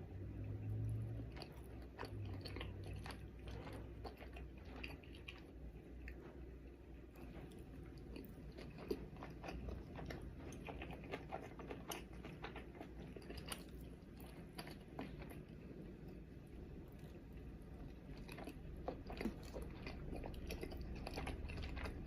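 A person chewing and biting sushi close to the microphone: irregular short clicks and smacks of the mouth over a steady low hum.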